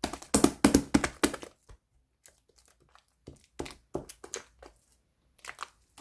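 Light purple slime being pressed and worked by hand, giving a dense run of crackling, popping clicks for about a second, then scattered softer clicks and a fresh burst near the end.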